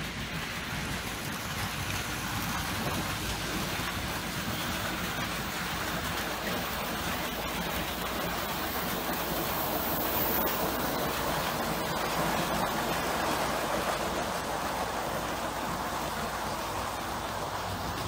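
OO gauge model trains running along the track: a steady rushing of wheels on rails and small motors, a little louder around the middle as a train passes close by.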